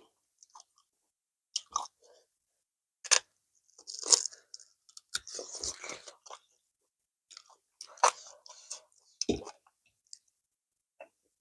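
Close-miked chewing and mouth noises of a person eating: irregular wet smacks and crunching bites, with short silent gaps between.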